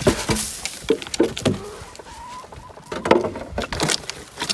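Hens in a chicken coop clucking, mixed with a few sharp knocks and rattles from the coop being handled. The loudest knocks come right at the start and about three seconds in.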